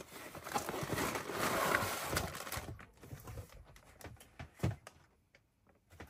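Plastic wrapping crinkling and rustling as a model kit box is opened and unpacked, for about two and a half seconds, then a few scattered light knocks of the contents being handled.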